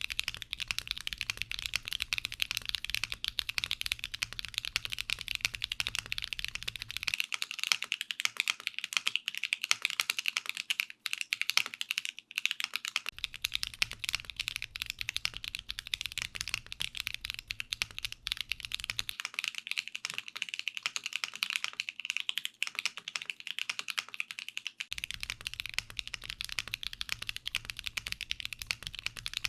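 Continuous typing on a mechanical keyboard fitted with Akko Lavender Purple tactile switches, in a case with no foam dampening. It is a steady, rapid stream of key clicks.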